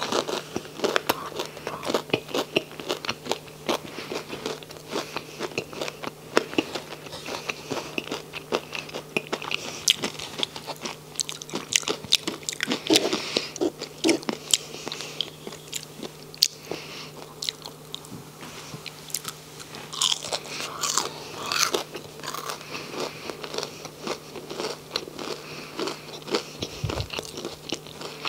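Close-miked chewing and biting of crunchy fried onion rings: a dense, irregular run of crisp crunches and mouth sounds.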